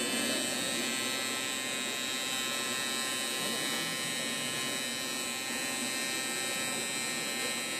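Welding arc buzzing steadily with an even electric hum, typical of AC TIG welding on aluminium.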